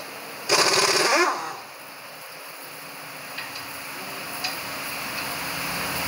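An impact wrench running in one burst of about a second while loosening a wheel lug nut, its pitch falling as it stops; a couple of faint clicks follow.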